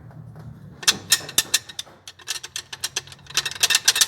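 Rapid, irregular mechanical clicking and rattling, like metal parts knocking together. It starts about a second in, gets thickest near the end, then stops.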